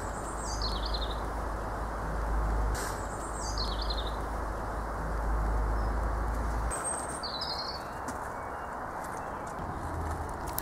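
A small songbird singing short, high phrases that step down in pitch, three times, over a steady low background rumble and hiss.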